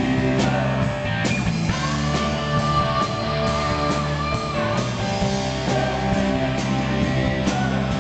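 Live rock band playing: electric guitars, bass, keyboards and drum kit, with a long held note from about two seconds in until about five.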